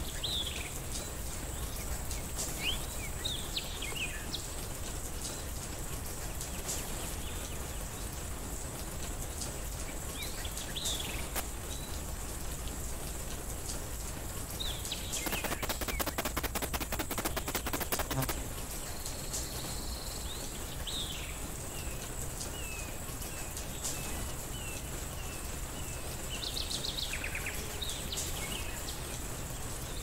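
Steady rain falling, with scattered short chirps of small songbirds. Around the middle comes a rapid rattle of clicks lasting about three seconds, and a faint steady high whine runs underneath.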